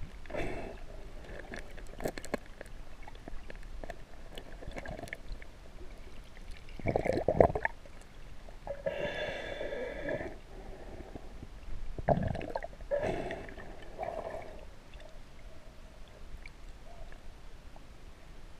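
Muffled underwater gurgling and sloshing of shallow water around a camera held just below the surface, with several louder swirling gushes, the loudest about seven seconds in.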